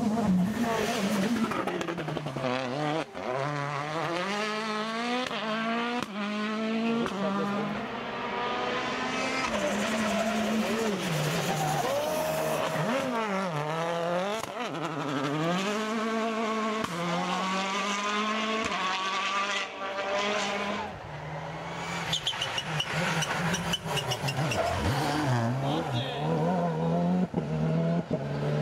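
Rally cars passing one after another at full throttle. Their engines climb through the gears and drop back at each shift, several times over; among them are a Citroën DS3 WRC and a Škoda Octavia WRC.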